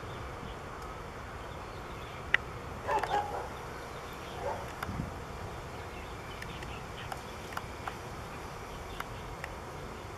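Steady buzzing of insects in woodland. A single sharp click about two seconds in is the loudest sound, and a brief cluster of scratchy sounds follows a moment later.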